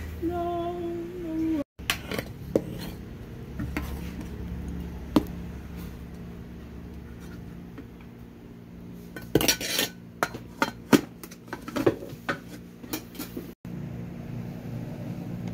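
Metal utensils clinking and knocking against an aluminium pot and dishes: scattered single taps, then a quick cluster of clinks about nine to ten seconds in and a few more after. A brief held tone sounds at the very start.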